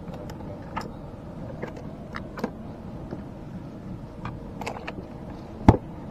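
Freshly caught spotted scat flapping in a container in the boat: scattered light taps and knocks at irregular intervals, with one louder thump near the end.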